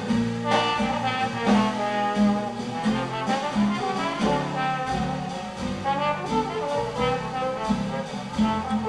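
Trombone playing a melody line over the rhythm section of a small traditional jazz band, with bass notes stepping along underneath.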